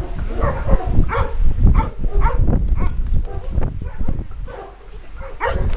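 Two dogs making excited vocal sounds, drawn-out whines and yips, as they jump up on a seated person, over a low rumble. The calls die down about three-quarters of the way through.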